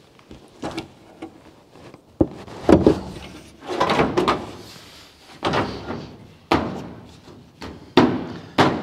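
Steel roof turret skin of a Holden HG ute being set down onto the car body and bumped into position: an irregular series of metal thunks and clanks, each with a short ring after it.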